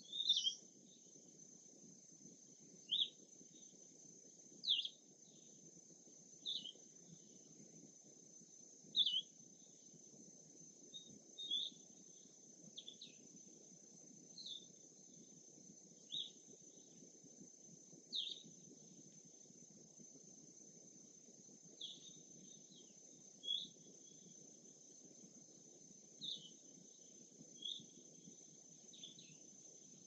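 A small songbird repeating a short, high chirp every second or two, about sixteen times, over a steady high insect drone.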